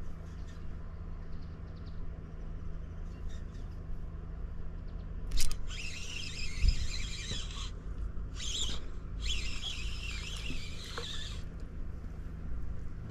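Shimano Vanquish 2000 spinning reel whirring in three spells of a few seconds each, the longest about two seconds, after a sharp knock. The spells start and stop abruptly.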